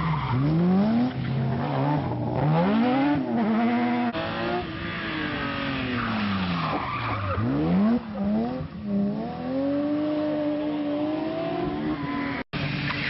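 BMW 3 Series rally car engines at full throttle through a corner, the engine pitch rising and falling again and again with throttle and gear changes, over the noise of tyres sliding on the tarmac. The sound cuts out for an instant near the end.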